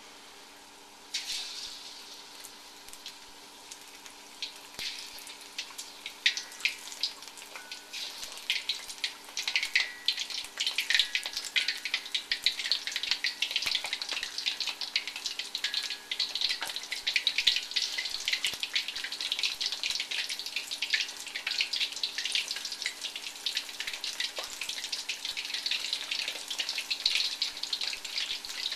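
Cornstarch-and-flour-battered shrimp deep-frying in hot oil in a wok: a crackling sizzle that starts about a second in and grows denser and louder as more shrimp are dropped into the oil.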